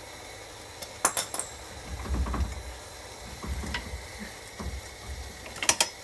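Metal hand tools clinking and clattering as they are handled: a sharp cluster of clinks about a second in and again near the end, with a few dull low thumps between.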